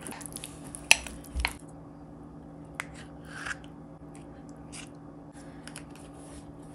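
A few sharp clicks and soft taps of kitchen utensils against dishes, spread out with gaps, over a steady low hum.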